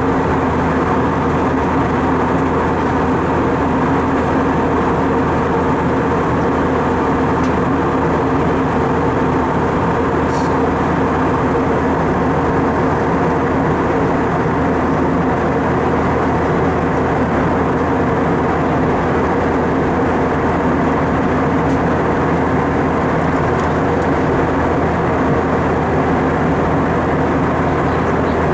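Airbus A320 cabin noise in cruise: a steady drone of engines and rushing air, with a few steady hum tones running through it.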